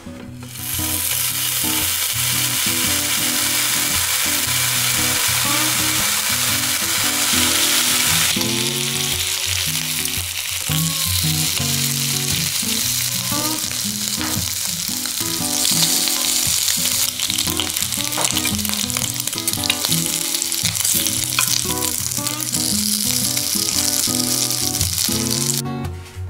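Bacon strips sizzling as they fry in a hot frying pan. The sizzle starts about half a second in and cuts off just before the end, with guitar music underneath.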